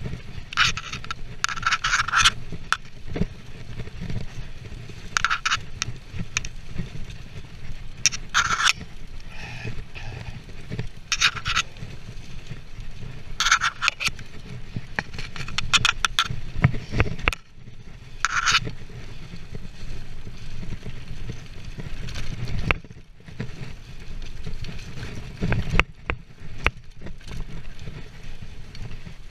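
Mountain bike running fast downhill on a leaf-covered dirt trail: tyres rolling and rattling over leaves and ground, with a steady low rumble of wind on the camera microphone. Short scraping bursts come about seven times, most of them in the first twenty seconds.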